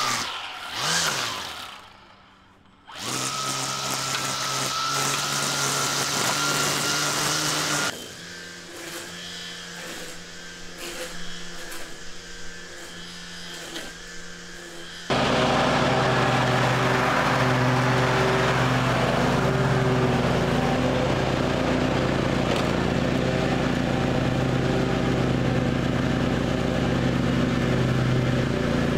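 A string trimmer running, winding down and starting again in the first few seconds, then a quieter stretch of lighter tool sounds. From about halfway, a zero-turn riding mower's engine runs steadily and loudly; the mower has just had a full tune-up with new spark plug, oil, filters and sharpened blades.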